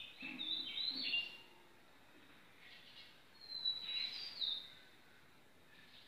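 A songbird singing two short phrases of high whistled notes that step downward, about three seconds apart.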